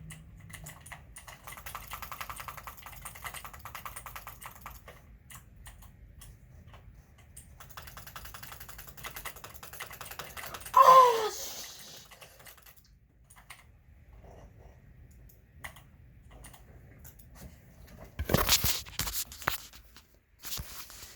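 Fast typing on a computer keyboard in two long runs of keystrokes, with scattered single clicks between. About eleven seconds in, a loud short squeal falling in pitch cuts across the typing, and near the end a couple of seconds of loud noisy knocks and rustling.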